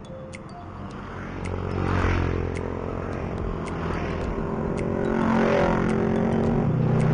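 Motorcycle engine running on the road with wind and road noise, swelling louder about two seconds in and again from about five seconds on.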